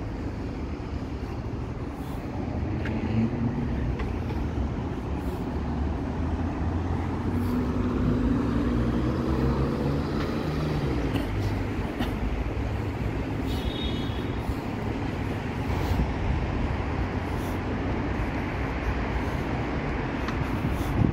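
Steady road traffic on a busy multi-lane boulevard, with car engines and tyres running continuously. About eight seconds in, one vehicle's engine rises in pitch as it accelerates.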